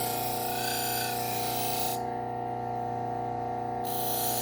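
Low-speed sander motor running steadily while a knife edge is worked against a Scotch-Brite wheel to strip the burr, an abrasive hiss. The hiss stops about two seconds in and starts again near the end while the motor hum carries on.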